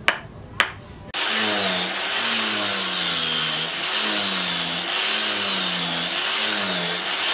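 Two sharp knocks, then about a second in an angle grinder with a sanding disc comes in suddenly, sanding the wooden knife handle; its motor pitch dips and rises over and over as it is pressed into the wood.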